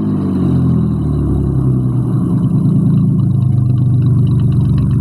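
Ford Mustang V6 engine with dual exhaust and an exhaust leak, its revs falling away in the first second, then idling steadily.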